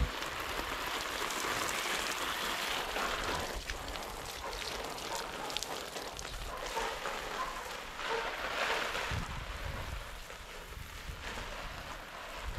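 A stream of water from a garden hose splashing onto broad vine leaves and soil, a steady hiss and patter that swells and eases.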